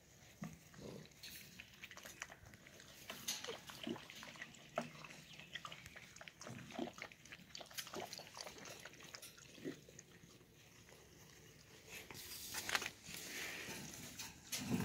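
A litter of eight-week-old golden retriever puppies scuffling, sniffing and mouthing at things: faint scattered scratches and clicks.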